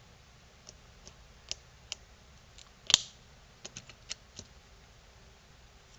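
Small clicks and ticks of fingers prying a lithium pouch battery out of a plastic smartwatch case, with one sharper snap about three seconds in.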